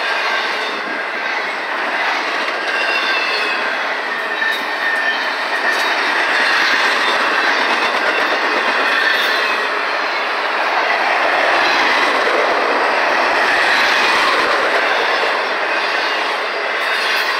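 Double-stack intermodal freight cars rolling past at close range: a steady, loud clatter of steel wheels on rail with a faint high wheel squeal, swelling slightly in the middle.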